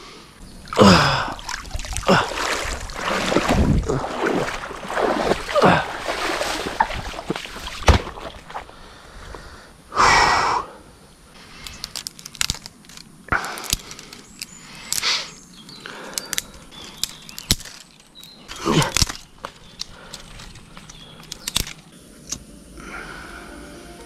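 A person moving about on foot: an irregular run of swishes and knocks close to the microphone, loudest about a second in, around ten seconds in and near nineteen seconds.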